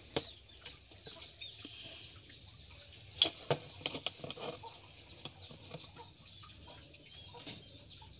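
Chickens peeping over and over in short, high, falling notes. A few sharp clicks and taps from handling the opened plastic multimeter case come near the start and about three seconds in.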